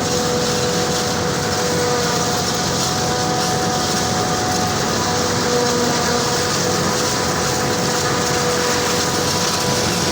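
Combine harvester running steadily through the corn: a constant mechanical din with a steady whine on top.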